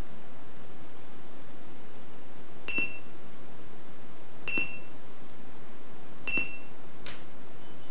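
Three short, high electronic beeps about two seconds apart from the buzzer of a 125 kHz RFID long-distance reader module. Each beep signals a successful read of the key fob tag. A faint brief chirp follows near the end, over steady hiss.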